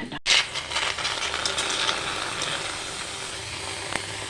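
Steady sizzling and hissing from a hot karahi. It starts abruptly just after the opening and eases slightly over the seconds that follow.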